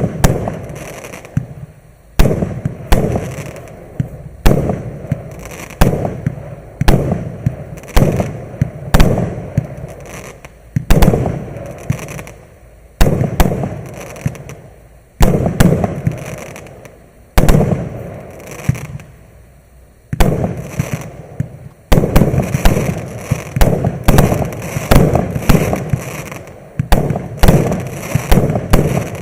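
MC146 Explosive firework from Maxsem firing a long run of shots, about one a second. Each loud bang trails off in a spatter of smaller pops, with a brief pause near two-thirds of the way through.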